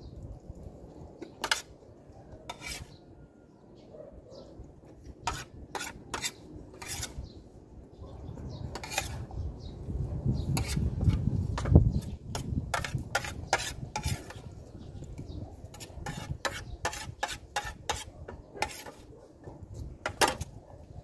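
Spoon and fork clinking and scraping on a plate during a meal, in many short sharp clicks. A low rumble swells in the middle and is the loudest part.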